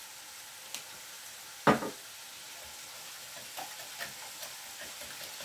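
Wire whisk beating eggs in a glass bowl, lightly ticking against the glass, over a steady sizzle of chicken frying in a pan. One sharp knock a little under two seconds in.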